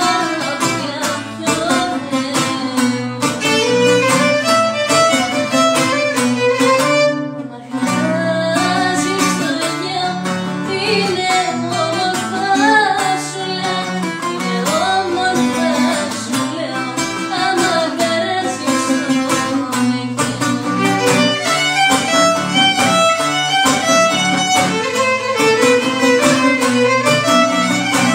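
Violin and laouto playing a Greek folk tune together, the bowed violin melody over the plucked laouto, with a brief break about seven seconds in.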